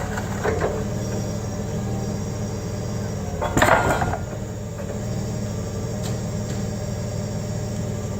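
Forklift engine running steadily as it creeps forward. About three and a half seconds in there is a loud short clatter, likely the wooden block under the lowered mast tipping over.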